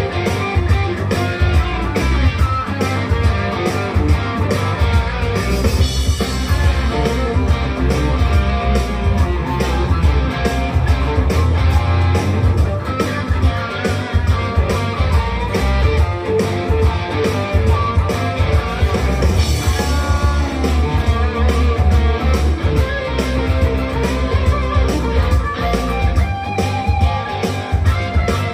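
Firefly FFLG SG-style electric guitar played through an amplifier, lead lines over a blues-rock backing track with bass and drums.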